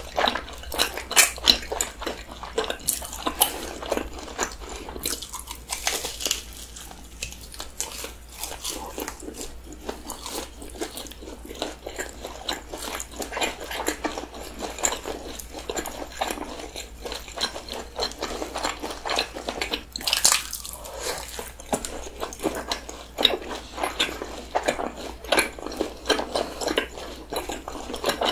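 Close-miked chewing of crispy, powder-coated Bburinkle hot dogs: a run of crunchy bites and wet mouth sounds from two eaters, irregular and continuous.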